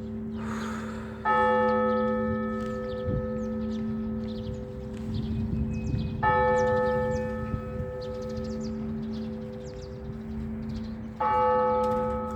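Russian Orthodox church bell struck slowly three times, about five seconds apart, each stroke ringing on under the next over a steady low hum, rung to call people to a service.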